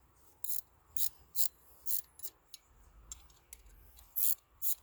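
Short, sharp metallic clicks and scrapes, about eight at uneven spacing, as vise grips clamp and work a nut off a threaded stud.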